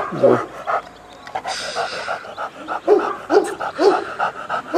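A dog whining in a run of short, high yips, several a second, with louder falling whines in the second half.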